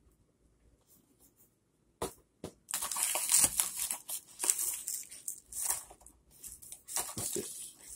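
Plastic packaging and DVD cases being handled and rummaged through, crinkling and rustling in irregular bursts that start about two seconds in.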